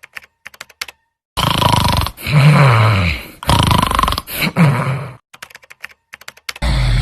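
A person snoring loudly with rough, grunting snores whose pitch rises and falls. Runs of quick clicks come before and after them.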